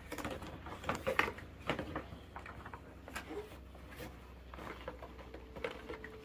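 Light knocks, clicks and rustles of a cardboard toy box being handled and small toy cars being taken out and set down, irregular and scattered, busiest in the first couple of seconds.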